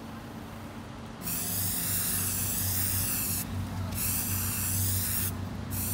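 Aerosol spray-paint can hissing as paint is sprayed onto paving stones, in two long bursts of about two seconds each with a short break between. The spraying starts about a second in.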